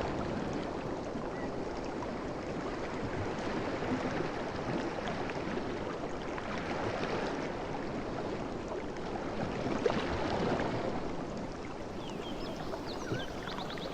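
Sea waves washing in steadily, swelling about halfway through and again a few seconds later. A few high bird chirps come in near the end.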